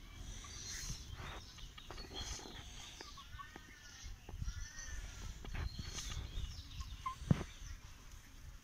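Young goats eating grain feed from a metal bowl, making soft scattered clicks and rustles of nibbling. A few faint high chirps come in the middle, and a single sharper knock comes near the end.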